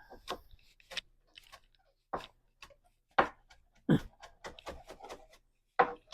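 Kitchen knife chopping fresh basil on a cutting board: irregular sharp knocks of the blade against the board, coming faster in a short run in the second half.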